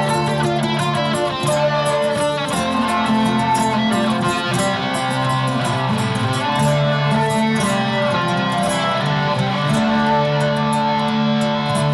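Amplified nylon-string guitar playing instrumental ambient music: long held low notes under a steady run of picked notes higher up.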